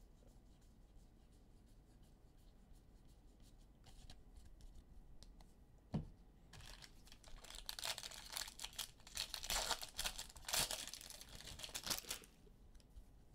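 A single knock midway, then several seconds of crackling and tearing as a foil trading-card pack wrapper is ripped open and crumpled.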